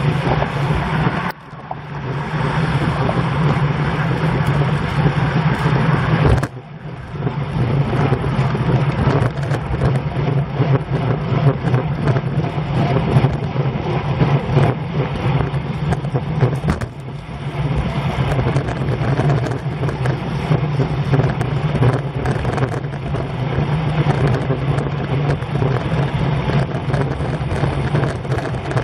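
Wind rushing over the microphone of a camera on a road bike riding at about 20 mph, a steady loud rumbling roar mixed with tyre and road noise. The roar drops out briefly twice, about a second in and about six seconds in.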